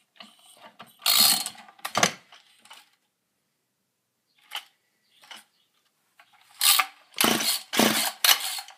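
Recoil starter of a Poulan 1800 Woodshark two-stroke chainsaw pulled by hand, the starter ratcheting and the engine turning over with little resistance: very bad compression from a scored piston, cylinder and rings. Two pulls about a second in, then a run of quick pulls about half a second apart near the end.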